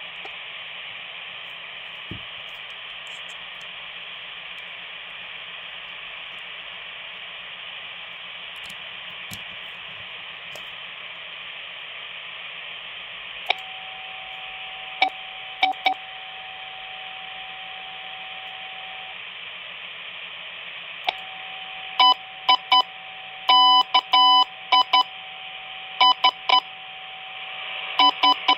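Quansheng UV-K5 handheld radios in CW mode: a steady receiver hiss, joined about halfway by a steady Morse tone that breaks off for about two seconds and comes back. In the last several seconds, short, loud beeps are keyed on and off as Morse.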